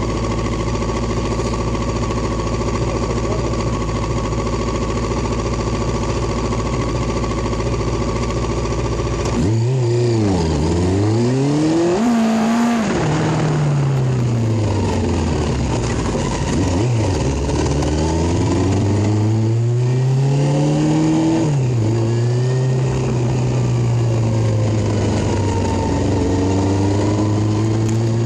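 Motorcycle engine idling steadily, then pulling away and revving up through the gears, its pitch rising and dropping sharply at each gear change about every few seconds, before settling to a steady cruise near the end.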